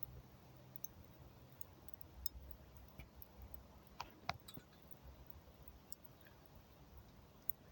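Burning charcoal and branches crackling faintly: scattered sharp pops and snaps, the loudest pair about four seconds in, over a low steady rumble of the fire.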